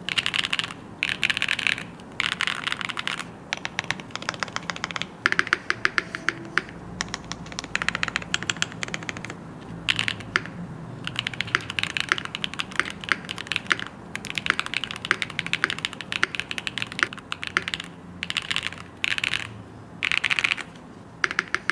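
Typing sound test on a Neo 98 custom mechanical keyboard with an anodized black aluminium case and Mincap Jamon keycaps: quick runs of key presses in bursts of a second or two, broken by short pauses and stretches of slower, single keystrokes.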